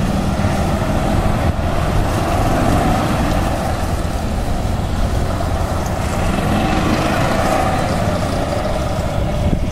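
Golf carts running close by with a steady motor hum, mixed with a low rumble of wind on the microphone.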